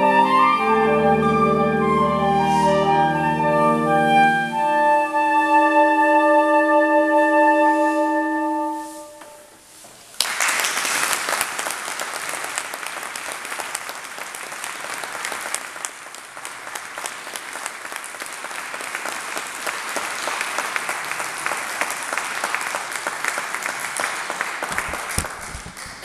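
A saxophone quartet of soprano, alto, tenor and baritone saxophones plays the last bars of a piece and holds a final chord, which ends about nine seconds in. After a second of quiet the audience applauds for the rest of the time.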